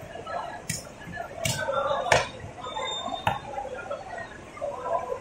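A knife chopping snapper pieces on a wooden chopping block: four sharp chops in the first few seconds, the third the loudest.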